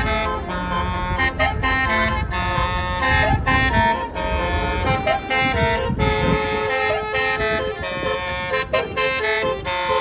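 Multi-note Basuri telolet horn on a tour bus playing a quick tune of short stepping notes, over the low rumble of the bus's engine.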